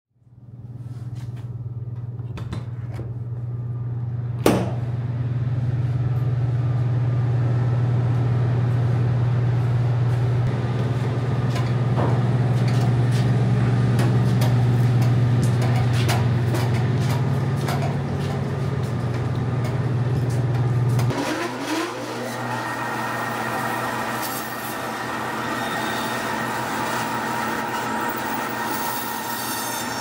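A steady low machine hum with a sharp click a few seconds in. About two-thirds of the way through the hum stops and a meat band saw takes over, running with a steady whine and a rasp as its blade cuts through a hog carcass.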